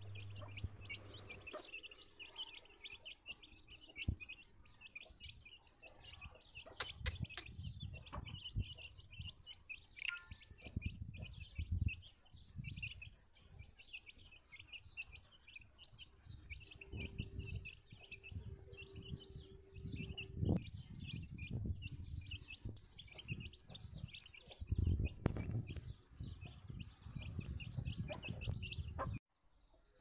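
A brood of Aseel chicks peeping constantly while they feed: many short, high chirps overlapping, several a second. Low rumbles come and go underneath.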